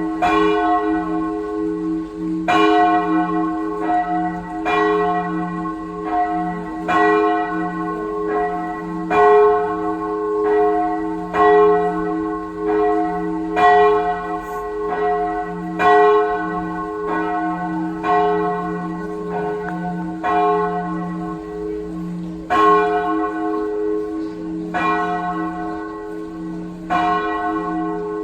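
Several church bells ringing together in a continuous peal. Strokes come about once a second, with a louder stroke about every two seconds, over the bells' steady lingering tone.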